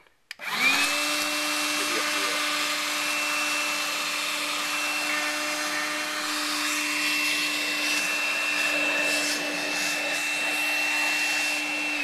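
Makita BCL180ZW 18-volt cordless vacuum switched on about half a second in. Its motor spins up to a steady high whine over a rush of air as it vacuums, and begins to wind down at the very end.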